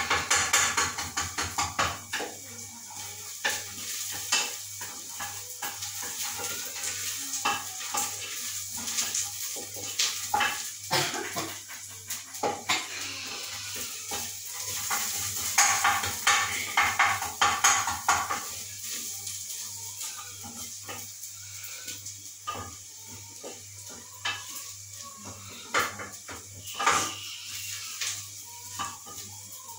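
Wooden spoon stirring food in an aluminium pot on a gas stove, knocking and scraping irregularly against the pot's sides, with frying food sizzling in it.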